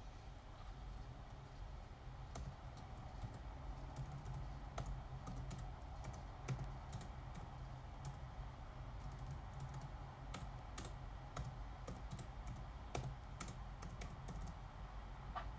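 Typing: irregular light key taps and clicks, a few to several a second, over a low steady hum.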